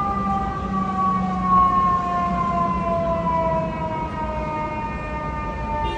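Fire engine siren wailing, its pitch falling slowly and steadily throughout.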